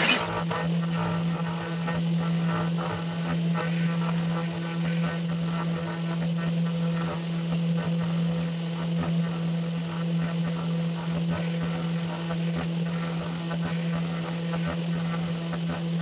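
Pandora 6050 CNC router spindle running with a steady low hum while its end mill carves into pine, a rough cutting noise full of small crackles, with one sharp click right at the start.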